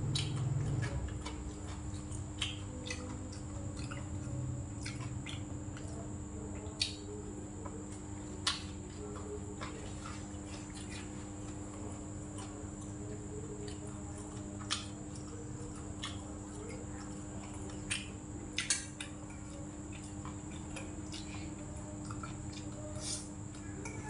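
Eating sounds: scattered sharp clicks and taps a few seconds apart, from chewing and from a spoon and chopsticks on a metal bowl, over a steady electrical hum.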